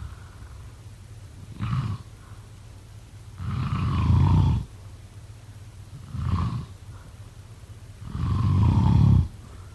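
A person snoring in a slow, regular rhythm. There are two long, loud snores, one near the middle and one near the end, each preceded a couple of seconds earlier by a shorter, softer breath sound.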